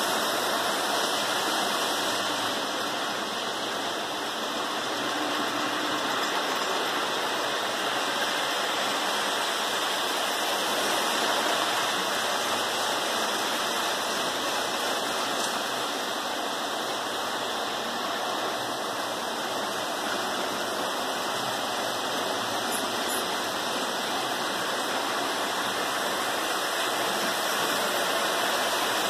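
Several three-rail O gauge model trains running together around a layout: a steady rumble and hiss of metal wheels rolling on tinplate track, without a clear rhythm.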